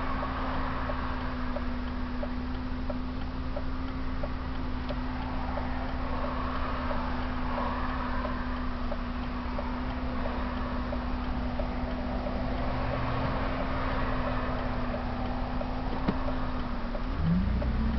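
BMW 328i's straight-six engine idling steadily, heard from inside the cabin, with a light regular ticking about twice a second. Near the end the revs rise as the car pulls away.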